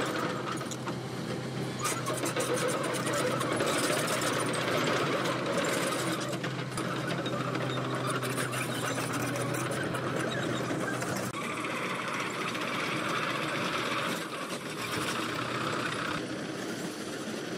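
Kobelco crawler excavator running and compacting freshly dug ground, with its engine hum under a fast, continuous rattling clatter.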